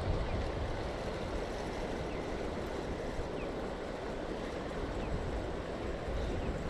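Steady rushing of flowing river water, an even noise with no distinct events.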